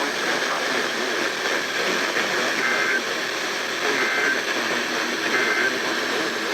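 Weather radio static hissing, with three short two-tone data bursts a little over a second apart: the EAS/SAME end-of-message code that closes an alert.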